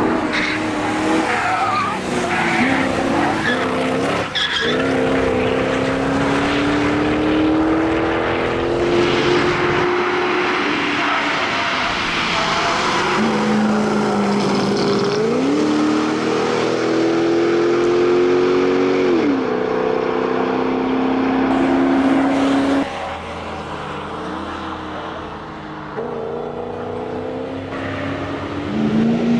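Mercedes SL500 R129's 5.0-litre M119 V8 driven hard on track, its pitch climbing for several seconds under acceleration and falling sharply several times as the driver lifts off or shifts, then climbing again. Tyres squeal and scrub through the corners.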